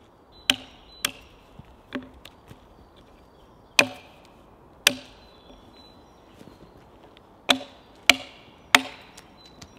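Hand axe chopping into a pine log: about eight sharp, dull strikes, in groups of two or three with short pauses between.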